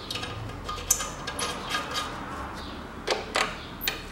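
Sharp metal clicks and light knocks from a metal exhaust manifold heat shield being handled and a bolt fitted into it by hand, a handful of separate clicks with the loudest about a second in and around three seconds in.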